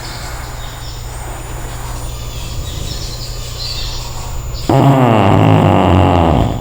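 Cavalier King Charles spaniel snoring into a microphone with an echo effect. At first there is a quieter low rumble with faint bird chirps behind it. About two-thirds of the way in, a loud pitched snore starts suddenly and runs almost to the end.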